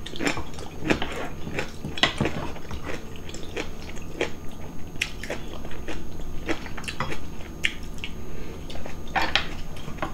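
Two people eating close to the microphone: chewing and biting, with frequent short clicks and smacks, over a meal of soft nurungji rice soup, salted seafood and kimchi eaten with chopsticks and a spoon.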